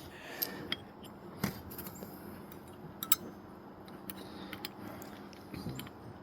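Scattered small metallic clicks and light knocks from handling hand tools, about half a dozen separate ticks with a pair close together in the middle; no power tool is running.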